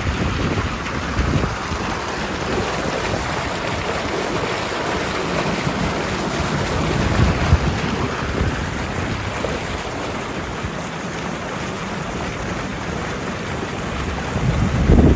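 Floodwater rushing steadily through a culvert on a swollen creek, with wind buffeting the microphone in low gusts, strongest near the end.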